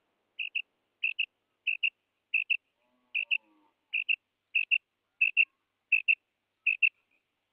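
Female rain quail call (karik), the lure used to draw in male quail: a high double note repeated steadily, about ten pairs at roughly one and a half a second.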